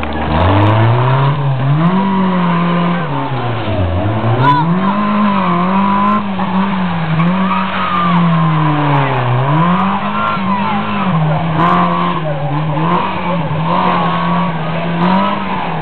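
Small four-cylinder engine of a rear-engined Fiat 600-type rally car revving hard and dropping back over and over as it is thrown through tight turns, with deep drops in revs about four and nine seconds in. Tyres squeal on the tarmac in the turns.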